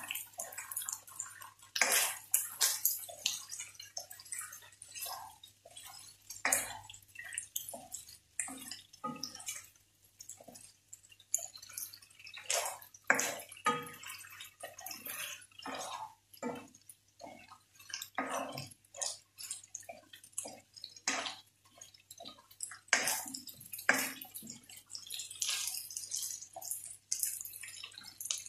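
Farfalle pasta and shrimp being stirred and tossed with a spatula in a nonstick frying pan: irregular scrapes and taps of the spatula on the pan, with crackling from the frying food.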